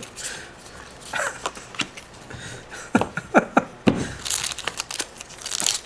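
Pokémon trading cards being handled and set down on the table, with a few sharp taps about three to four seconds in, then crinkling of a foil booster pack being picked up near the end.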